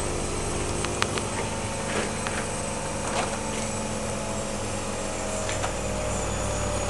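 Washing machine running: a steady motor hum with a few light clicks, and a whine that rises slowly in pitch in the second half.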